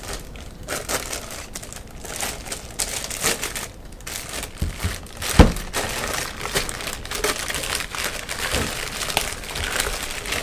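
Plastic wrapping crinkling and rustling as it is pulled off a small two-bay NAS enclosure, with a single sharp knock about halfway through.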